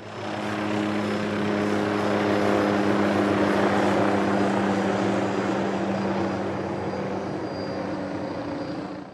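A helicopter's engines and rotor running steadily, with a constant low hum under a dense rushing noise. It swells in over the first second and dies away at the very end.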